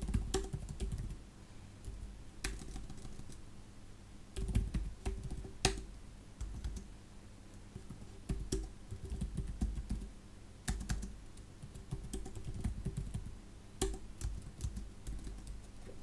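Computer keyboard typing: irregular runs of keystrokes with short pauses between them.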